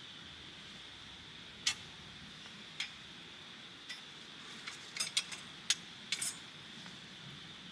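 Scattered light clicks and clinks of small hard objects, irregular and bunched toward the end, over a steady faint high-pitched hum.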